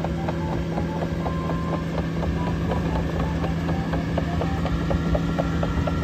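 Caterpillar AP655F tracked asphalt paver's diesel engine running with a steady hum, overlaid by a quick irregular patter of short high squeaks and clicks from the machine.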